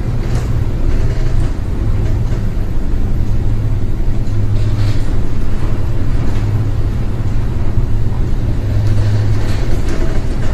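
Deep, steady rumble of a cruise ship heard inside a cabin, with a few faint knocks.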